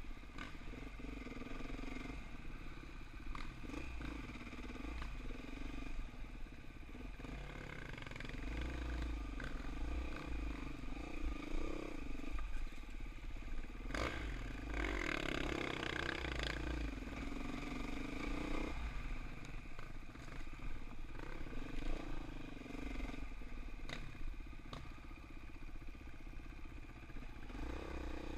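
Dirt bike engine running under the rider, its pitch rising and falling as the throttle opens and closes, louder for a few seconds about halfway through. Scattered knocks and clatter from the bike over the rough trail.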